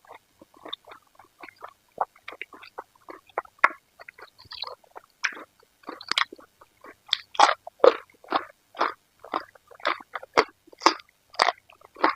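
Close-miked chewing and biting of food, irregular wet smacks and crunches several times a second, louder in the second half.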